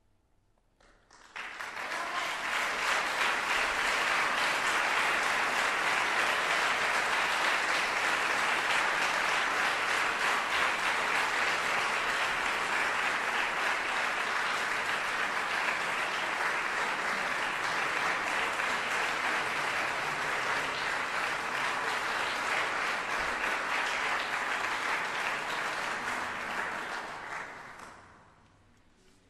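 Audience applauding: steady clapping that starts about a second in and dies away near the end.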